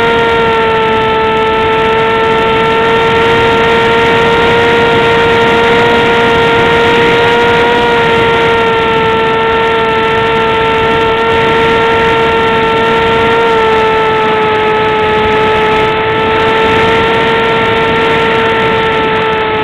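Radio-controlled model plane's motor and propeller heard up close from an onboard camera: a loud, steady drone at one pitch over rushing air noise. The pitch dips slightly about eight seconds in and again at about thirteen seconds.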